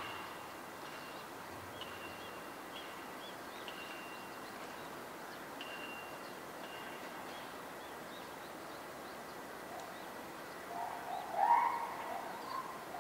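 Birds calling over a steady background hiss: faint short high chirps through the first half, then a run of several louder short calls near the end.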